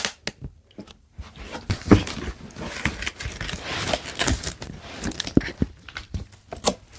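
A cardboard speaker box and its plastic packaging being handled and opened: irregular rustling, scraping and tearing with scattered knocks, the sharpest about two seconds in.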